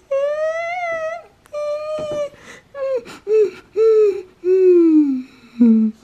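A child's voice imitating a crying baby: two long, wavering wails, then a run of shorter sobbing cries that fall in pitch.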